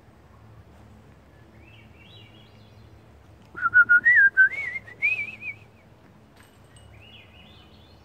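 Songbird song in the woods: a short, faint warbled phrase about a second and a half in and again near the end. Between them comes a much louder whistle that wavers up and down as it climbs in pitch for about two seconds.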